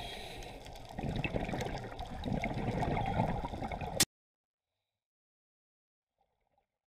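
Muffled underwater water and bubble noise picked up by a camera in a dive housing, an uneven gurgling wash that swells about a second in and cuts off abruptly about four seconds in.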